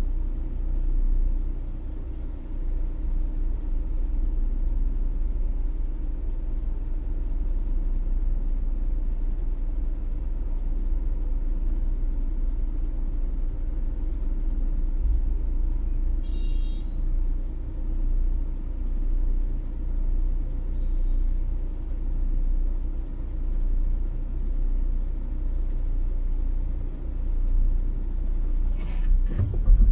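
Steady low rumble of a car driving on a city road. A brief faint high tone comes about halfway through, and a few sharp knocks come near the end.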